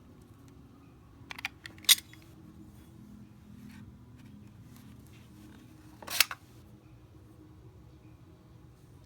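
Sharp mechanical clicks from handling a SMOK X Cube 2 vape mod that will not power on: a few small clicks about a second and a half in, a loud click just before two seconds, and another loud click about six seconds in.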